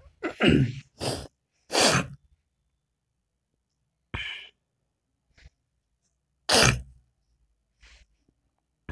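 A person's sneezes and coughs: about six short, loud bursts of breath, the loudest about half a second in and again near seven seconds in, with silent gaps between.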